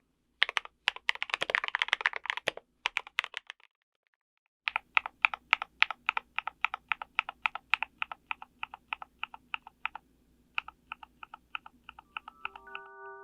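Typing on a KBD75V2 mechanical keyboard with lubed and filmed Gateron Yellow Milky linear switches and a brass plate: a quick flurry of keystrokes, a short pause, then a steady run of about four keystrokes a second that turns softer and quicker. Bell-like music notes come in at the very end.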